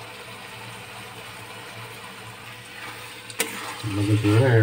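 Steady low kitchen hum with a faint hiss. About three and a half seconds in comes a single sharp knock, and a voice starts near the end.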